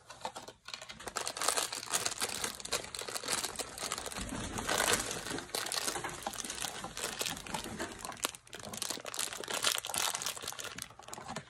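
Black foil blind bag of a Funko mystery mini crinkling and crackling steadily as it is handled and worked open by hand.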